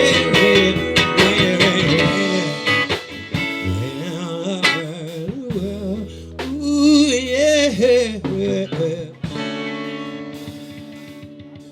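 Blues guitar break between sung lines. It opens with full strummed chords, has wavering bent notes with vibrato in the middle, and ends on a held chord that rings and slowly fades.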